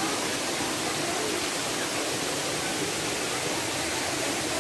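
Steady rushing of a waterfall and its stream: an even wash of water noise with no breaks.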